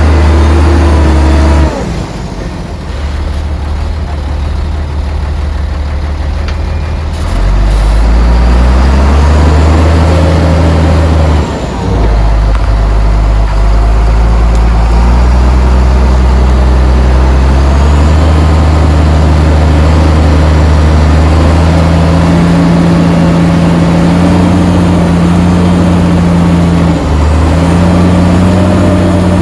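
Heavy diesel engine of earthmoving machinery working under load, its revs stepping up and down repeatedly, with brief dips at about two seconds in and at about eleven seconds in.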